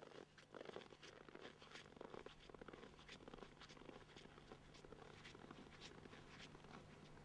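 Faint footsteps crunching on snow, about two steps a second, growing fainter.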